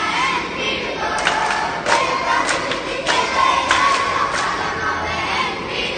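Poorakkali group singing: many voices chanting a devotional song together, held notes lined by sharp hand claps that come roughly every half-second to second as the dancers circle.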